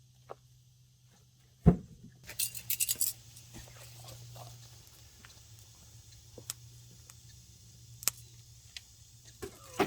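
A sharp knock, then a quick run of light metallic clinks lasting under a second, with a few single clicks afterwards over a faint steady low hum.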